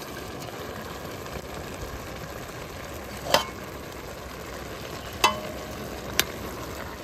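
A utensil stirring food in a metal pan over a steady hiss, with three sharp knocks of the utensil against the pan; the second knock, about halfway through, leaves a short ring.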